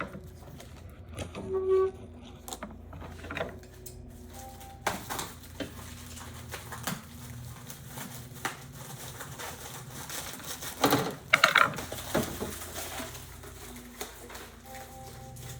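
Printer parts and packaging being handled: scattered light clicks and knocks, with a cluster of louder clunks about eleven seconds in, over a steady low hum.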